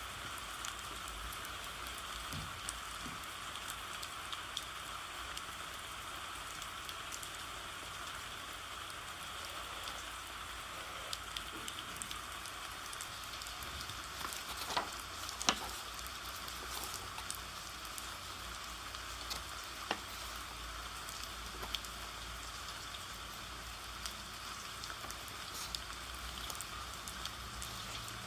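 Steady rain falling, with scattered light ticks of drops and a few sharper clicks about halfway through.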